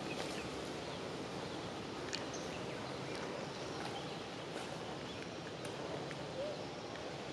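Outdoor woodland ambience: a steady background hiss with scattered soft rustles and clicks, like footsteps through dry leaf litter, and a few short high bird chirps.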